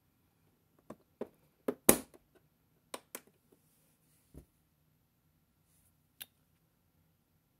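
Small plastic clicks and knocks as the molds are set into a miniature toy kitchen oven and its little door is pushed shut, the loudest knock about two seconds in, followed by a few lighter taps.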